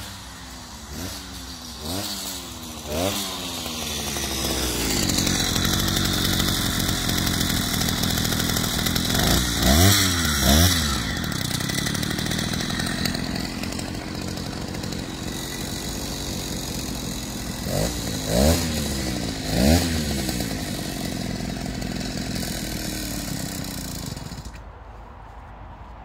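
Small engine of a motorised bicycle sputtering through a few quick revs, then catching and running, revved sharply around ten seconds in and twice more later. It cuts out near the end: a hard-starting engine that won't stay running.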